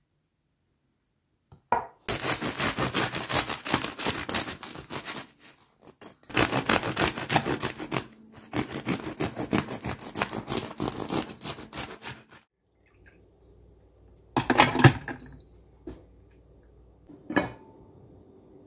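Knife sawing through the crisp crust of a freshly baked loaf on a wooden cutting board: a crackling, crunchy rasp in three long runs. Then a single knock and a click.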